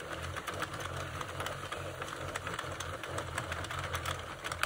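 Sentro circular knitting machine being hand-cranked: its plastic needles clicking and rattling round the cam track in a steady, rapid mechanical clatter.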